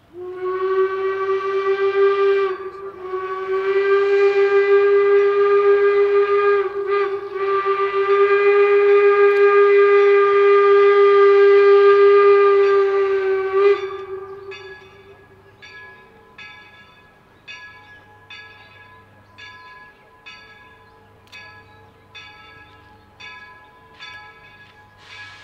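Steam locomotive whistle of the 4-4-0 replica York #17: three blasts on a single steady tone, a short one, a longer one and a long one of about seven seconds. About halfway through, the whistle stops and the locomotive's bell rings steadily, a little under two strokes a second.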